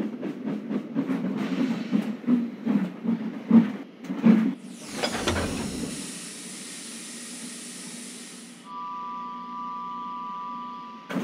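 Steam locomotive puffing slowly in a run of soft chuffs, then a loud rush of released steam about five seconds in that settles into a steady hiss. A faint steady two-note tone sounds over the hiss near the end.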